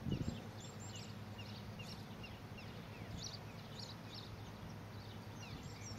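Quiet meadow ambience: small birds chirping again and again over a low steady rumble. A short crunching burst right at the start comes from a lamb tearing at the grass.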